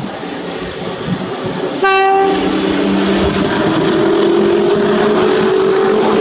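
Passenger train hauled by an EP07 electric locomotive rolling past on the rails, with a short, sharp train horn toot about two seconds in. After the toot a steady hum of several tones runs on, rising slowly in pitch as the train picks up speed.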